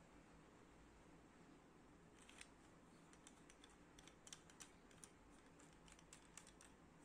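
Faint, irregular clicking of ABS plastic threads as two tube sections of a phone stand are screwed together by hand, starting about two seconds in over quiet room tone.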